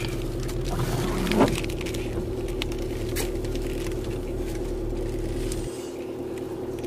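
Car idling, heard from inside the cabin as a steady low hum. A brief short sound comes about one and a half seconds in, and the low rumble drops away near the end.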